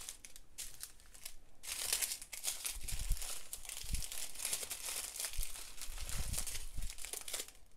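Small plastic bags of diamond-painting drills crinkling as they are handled and laid out on a plastic-covered canvas, the rustling getting busier after about a second and a half, with a few soft thumps.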